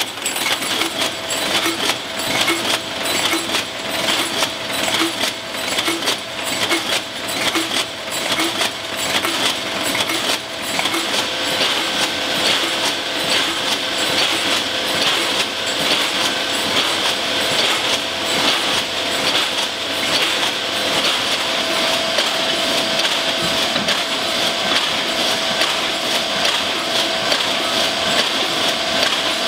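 Dense metallic clatter of aerosol can bodies running through automated can-making machinery. After about ten seconds it turns steadier, with a constant hum under it, as cans run through a rotary leak tester.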